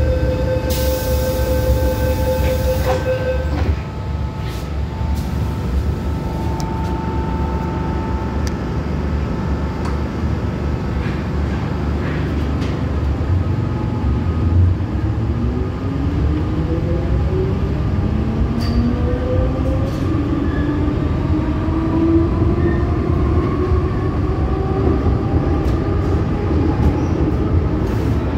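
MTR M-Train metro car heard from inside, pulling away: a steady tone and a burst of hiss in the first few seconds, then a constant rumble of wheels on rail. From about halfway on, the traction motor whine climbs steadily in pitch as the train speeds up.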